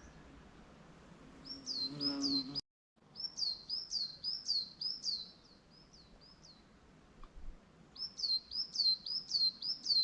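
A small songbird singing runs of quick, repeated, high down-slurred notes, three runs of a second or more each. The sound cuts out completely for a moment about two and a half seconds in.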